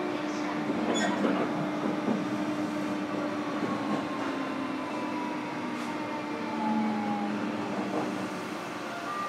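Onboard running sound of a JR Kyushu 305 series electric train, heard inside motor car MoHa 305-103: a steady rumble as the train runs, with a steady low motor hum and a whine that slowly falls in pitch through the middle, plus a few light clicks.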